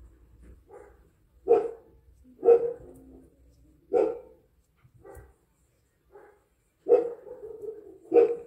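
A dog barking, about six single barks at uneven gaps of a second or so.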